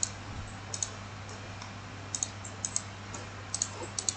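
Scattered sharp clicks of a computer mouse and keyboard, many in quick pairs, over a steady low electrical hum.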